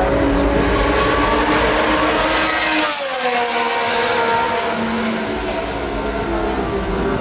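Vintage Formula 1 race car passing at speed: its engine sound rises to a peak about three seconds in, then the pitch drops as it goes by. Engine sound continues afterwards.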